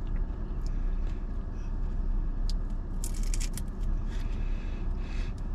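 Crunching bites into a crisp fried corn tostada shell and chewing, a few short crackling crunches about halfway through and again near the end, over a steady low rumble inside a car cabin.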